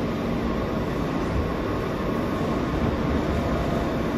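Steady rumble and running noise inside a New York City R160 subway car on the R line as it pulls into a station before the doors open, with a few faint steady tones.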